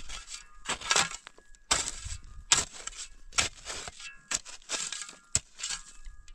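Shovel blade digging and scraping into dry, stony soil in repeated strokes, about one a second, with a sharp click about five seconds in.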